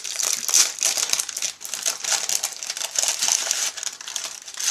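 Packaging of a marshmallow Peeps packet being opened by hand: continuous crinkling and rustling of the wrapper with many small crackles.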